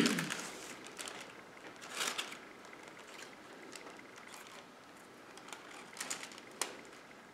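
Faint rustling and light clicks of a folded paper star and its wire being handled as it is hung on a branch, with a few short rustles about two seconds in and again near the end.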